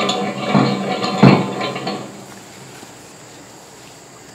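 Steel clamp-on pallet fork tines clanking against the steel front-loader bucket as they are fitted, metal on metal: a few ringing knocks, the loudest about half a second and a second and a quarter in.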